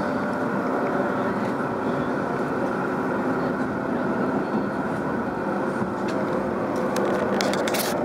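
Steady running noise inside a Shinkansen passenger car: an even rumble with a faint hum through it. A few sharp clicks near the end.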